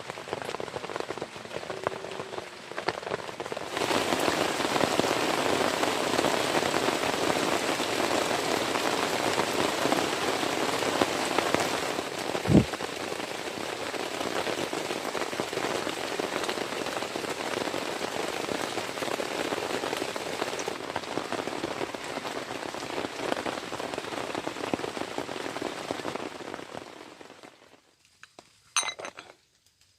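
Heavy rain falling steadily, growing louder about four seconds in and cutting off suddenly near the end, with one sharp click about twelve seconds in.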